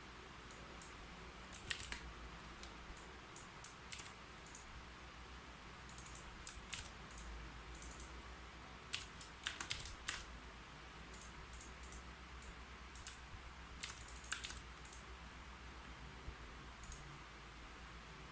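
Typing on a keyboard: irregular runs of key clicks with short pauses between them, thinning out to a few isolated taps near the end.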